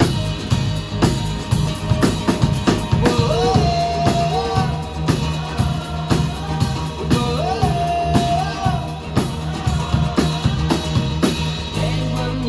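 Live rock band playing an instrumental passage: a drum kit keeps a steady, busy beat over bass, with a held melodic line twice in the middle. Near the end the drums stop and a chord rings on.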